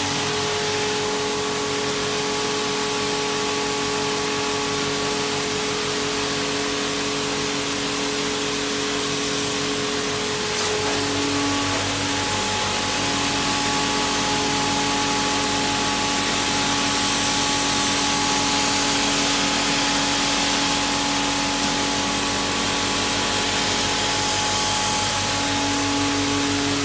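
Self-service car wash spray gun blasting a steady high-pressure jet of water, a continuous loud hiss, over the steady hum of the machine's pump.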